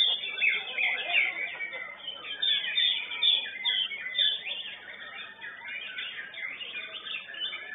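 White-rumped shama singing a fast, unbroken run of varied whistles and chirps, the notes sliding up and down, louder in the first half.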